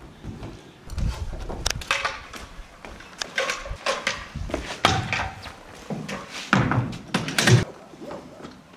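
Irregular handling noises: a string of knocks, thumps and short rustles as things are picked up and moved about, the loudest a burst of rustling and knocks near the end.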